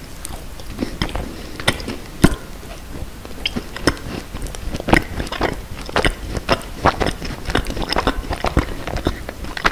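Close-miked biting and chewing of a macaron: crisp crunches of the shell. The loudest crunch comes about two seconds in, and a dense run of small crackles follows from about four seconds on as it is chewed.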